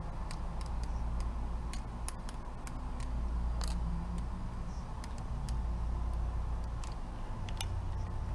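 Balisong (butterfly knife) being flipped: quick, irregular clicks as its handles swing open and shut around the blade. A steady low rumble runs underneath.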